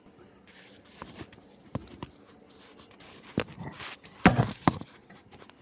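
Handling noise: a string of separate knocks and clicks, the loudest about four seconds in.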